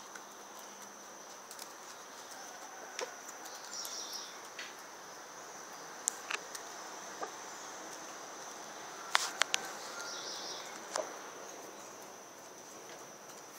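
Roosters pecking grain off a concrete step: scattered sharp taps of beaks on the concrete, with a quick cluster of them about nine seconds in. Under them runs a steady high insect drone.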